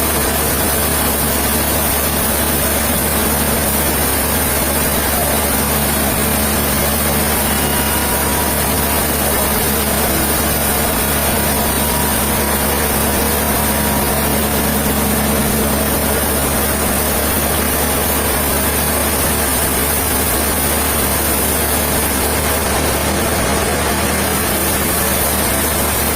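Heavy machinery running steadily at an even, unchanging level.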